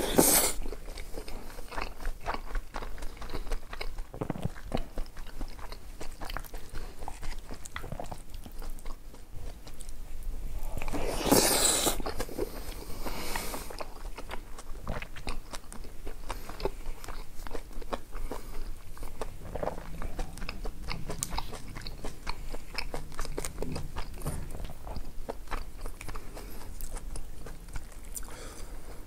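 Close-up chewing and biting of food, with many small wet clicks and some crunches. About eleven seconds in comes a louder rush of noise lasting a second or two.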